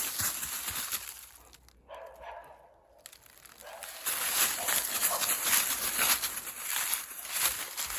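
Footsteps crunching through dry fallen leaves in a quick, uneven series. They pause for a couple of seconds in the middle, then start again.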